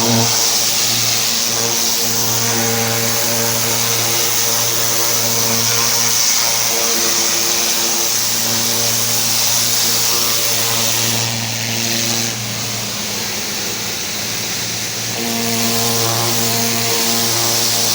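Pressure washer running: a steady engine hum under the hiss of the water spray. For a few seconds past the middle the hum and hiss drop back, then both return.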